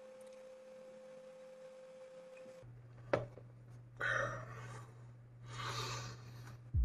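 A faint steady tone for the first two and a half seconds, then a single sharp knock about three seconds in, followed by two breathy exhales from a man who has just drunk a glass of juice.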